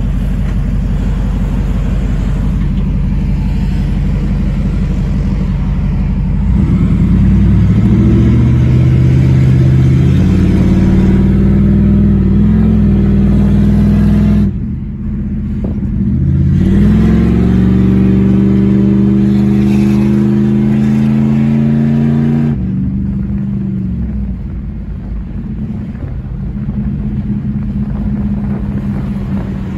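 Jeep Grand Cherokee ZJ 5.9 V8 engine heard from inside the cabin under hard acceleration: a steady run, then a louder pull rising in pitch, a sudden drop at an upshift about halfway through, a second rising pull, and easing back to a lower, steady cruise a few seconds before the end.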